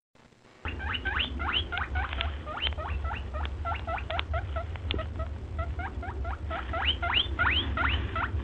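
A small animal giving quick high squeaks, rodent-like, each rising sharply in pitch, about four a second, over a steady low hum. The squeaking starts about half a second in, after a brief silence.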